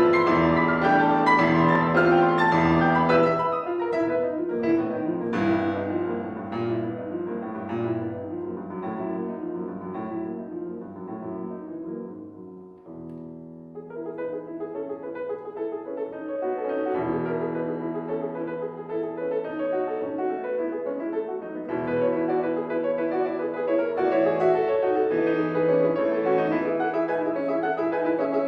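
Solo piano playing classical music; the playing dies down to a soft, sparse passage about twelve seconds in, then builds again.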